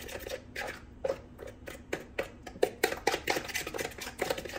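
A utensil stirring a thick yogurt-and-egg marinade in a bowl: a run of quick, irregular taps and scrapes against the bowl.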